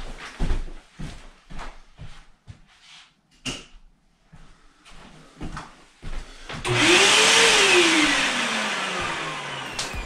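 A few scattered knocks and clicks of handling, then about two thirds of the way in a vacuum cleaner switches on with a loud rush of air, its motor whine rising briefly and then winding down as the noise fades: a quick power test of a freshly wired outlet.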